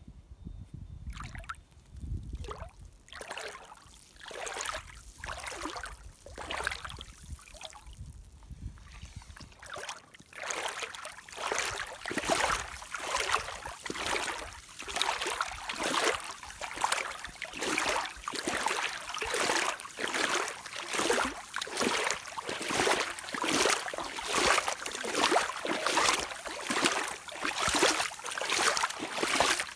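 Rubber Hunter rain boots sloshing and swishing through water, one splash after another. The strokes are sparse and uneven at first, then about ten seconds in turn louder and steady, roughly one and a half a second.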